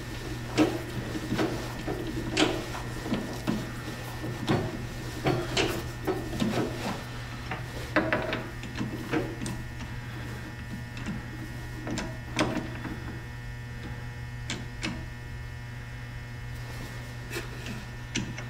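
Three-jaw lathe chuck being worked open and shut, with irregular metallic clicks and knocks as a short steel tube is set and clamped between the jaws, over a steady low hum. The knocks thin out in the last few seconds.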